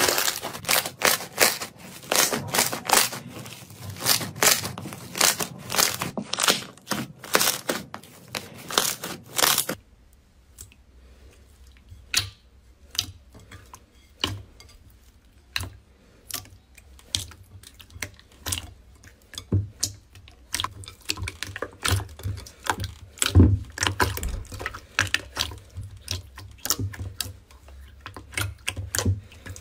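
Slime being handled: dense crackling and tearing as a stringy, fibrous slime is pulled apart by hand. About ten seconds in this gives way to quieter, sparser squelches and pops as a glossy slime is pressed and poked in a glass bowl.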